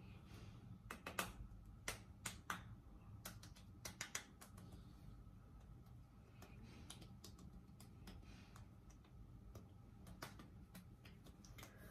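Fingertips lightly patting and tapping the face to work in moisturizer: faint, irregular soft slaps of skin on skin, coming in short clusters over a low room hum.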